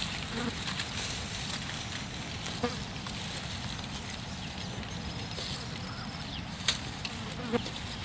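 Open-air field ambience: a steady hiss over a low rumble, broken by three short sharp clicks, one about two and a half seconds in and two about a second apart near the end.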